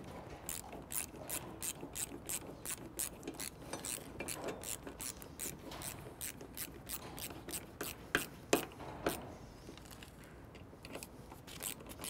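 Ratcheting Torx T30 screwdriver clicking steadily, about three clicks a second, as a bow mount screw is turned through a steel bracket into the sport bar. The clicking pauses briefly about ten seconds in.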